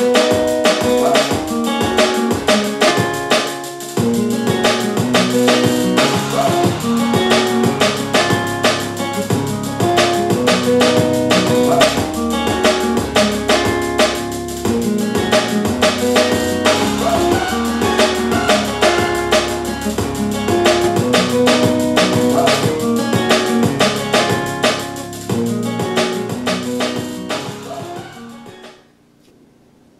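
Music with drums and guitar played through a Bose Acoustimass 5 speaker system and its bass module, picked up in the room. A deep bass line comes in about four seconds in, and the music fades and stops about a second before the end.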